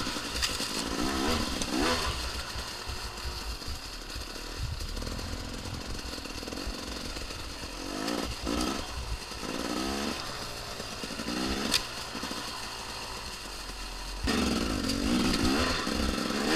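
2014 KTM XC-W 250 two-stroke dirt bike engine, heard from on the bike, revving up and easing off in repeated bursts as it is ridden, the loudest bursts near the start and the end. A single sharp tick about twelve seconds in.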